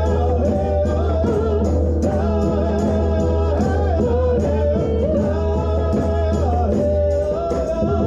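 A woman singing a held, slow melody while beating a hand frame drum in a steady beat.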